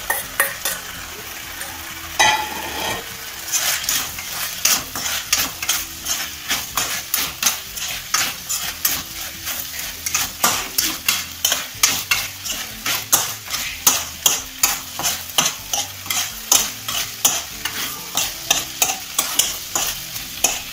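Steel spoon stirring and tossing fried baby corn in a sauce-coated non-stick kadai, scraping and knocking against the pan, with the food frying and sizzling underneath. The strokes come sparsely at first, then settle into a regular rhythm of about three a second from a few seconds in.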